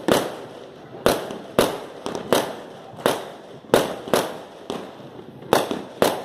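Fireworks bursting overhead: about ten sharp bangs at irregular intervals, each followed by a short echoing tail.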